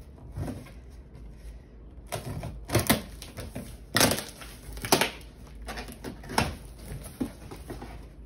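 Scissors blade slitting packing tape on a cardboard box: about half a dozen short, sharp scraping rips, with the cardboard flaps pulled open near the end.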